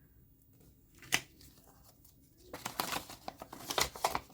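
Paper pieces being handled: a single sharp tap about a second in, then crinkling and rustling of paper from a little past halfway.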